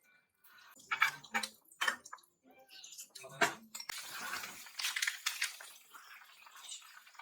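A few sharp clinks and knocks, like dishes being handled, then a stretch of running water from a tap about halfway in.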